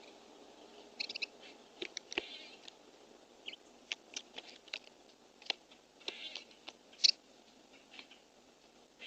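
Small birds at a feeder: scattered sharp pecking clicks with a few short, high chirps, heard through a small camera microphone that cuts off the lows and highs.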